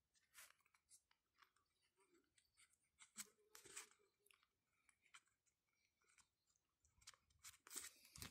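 Faint scratching of writing on a small paper log sheet, in short scattered strokes, with a little paper rustling near the end as the sheet is handled.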